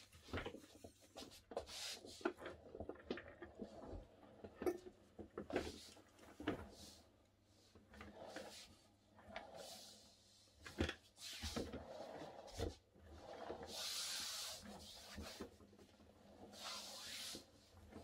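Faint, irregular knocks, clicks and rubbing from an office chair on rollerblade-style wheels being handled and rolled about on a laminate floor, with two longer stretches of rubbing near the end.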